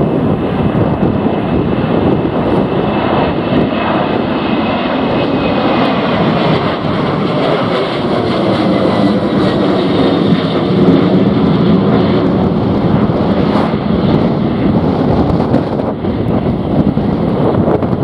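Boeing 737-800's CFM56-7B jet engines at take-off thrust as it climbs out overhead, a steady roar with a high whine that slowly falls in pitch over the first several seconds. The sound is loudest about eleven seconds in as the aircraft passes.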